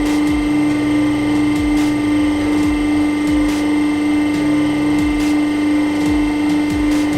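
Hydraulic press running with a steady motor-pump hum, pulsing low a little faster than once a second, with faint clicks.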